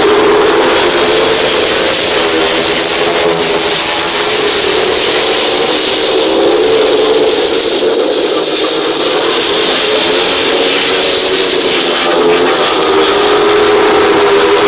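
Several speedway motorcycles' 500cc single-cylinder engines racing around a dirt oval. Their pitch rises and falls as the riders throttle on and off through the bends. The sound is loudest as the pack passes close near the start and near the end, and eases a little in the middle.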